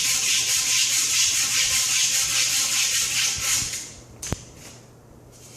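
Hand-sanding the end of a new 3/4-inch copper pipe with an abrasive, a fast, steady scratching of rapid strokes to clean it before soldering. The sanding stops at about four seconds, followed by a single sharp click.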